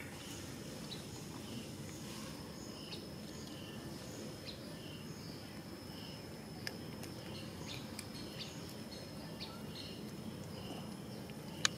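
Outdoor ambience: a steady background hiss with a faint, regularly repeating high chirp from a small animal. A few sharp clicks sound through it, the loudest near the end.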